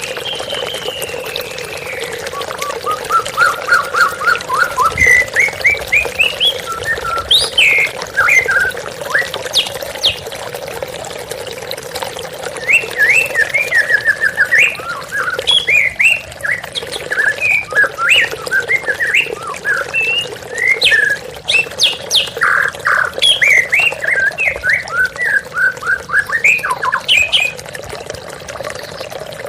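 White-rumped shama (murai batu) singing a long, varied song of quick whistled and chattering phrases over the steady rush of falling water.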